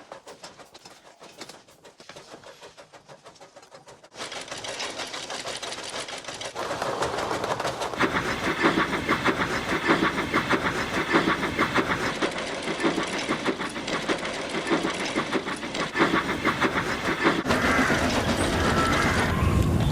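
Train running fast with a rapid, even rhythmic clatter. It starts quiet, then grows louder about four seconds in and again around eight seconds, and some wavering high squeals come in near the end.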